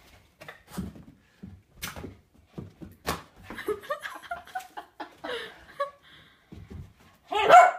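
Scattered soft knocks and taps as a Boston Terrier puppy bats and chases a rubber balloon, with a short loud cry near the end.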